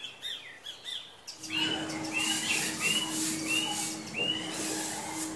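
Birds chirping, then a stiff twig broom scrubbing wet stone steps with a steady, scratchy swishing. Over it a bird calls five times at an even pace.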